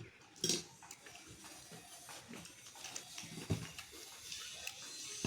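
Light, irregular clinks and scrapes of a plate and utensils during a meal, mixed with soft eating noises.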